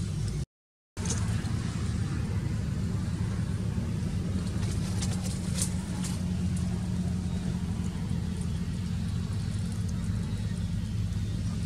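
A steady low mechanical hum, like a running motor, that cuts out for about half a second just after the start and then runs on evenly. A few faint light clicks come about five seconds in.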